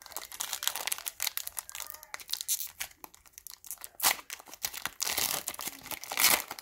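Foil wrapper of a Mosaic basketball card pack being torn open and crinkled in gloved hands: dense crackling, loudest about four seconds in and again near the end as the wrapper is pulled off the cards.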